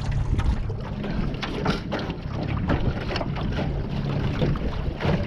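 A small boat motor running steadily with a low hum, with wind on the microphone and frequent short knocks over it.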